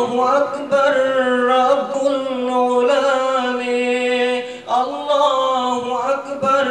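A man singing an Urdu ghazal solo and unaccompanied, holding long steady notes with ornamented turns. He breaks off briefly about two-thirds of the way through, then starts a new phrase.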